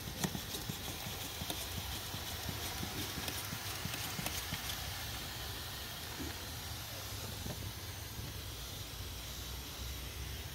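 Hand trigger sprayer on a plastic bottle squeezed over and over, misting water onto seed-tray soil: a hiss of spray with repeated clicks of the trigger, the clicks thicker in the first couple of seconds.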